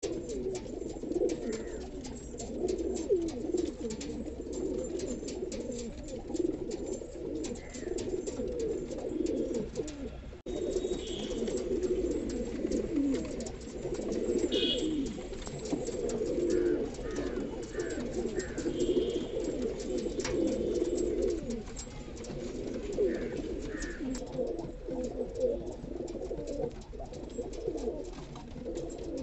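Several Indian high flyer roller pigeons cooing continuously, their low coos overlapping one another, with a few short higher chirps here and there.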